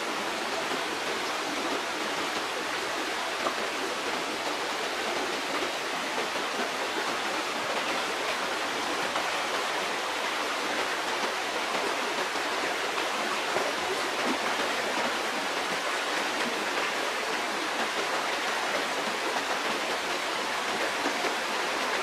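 Stream water rushing steadily, an even unbroken noise.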